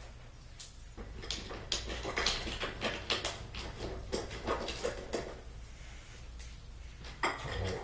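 Small metal screws clicking and clinking as they are handled and counted out into sets, a quick run of small knocks with a quieter stretch before a few more near the end.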